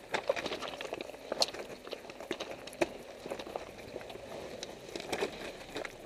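Tyres of a Mitsubishi Pinin crunching slowly over loose river stones, with irregular sharp clicks and knocks as stones shift and strike under the wheel.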